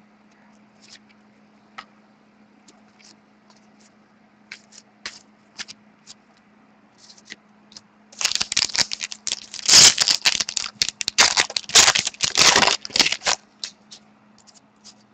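Light clicks and rustles of trading cards being handled, then, about eight seconds in, some five seconds of loud crinkling and tearing: a foil hockey-card pack wrapper being torn open. A faint steady hum runs underneath.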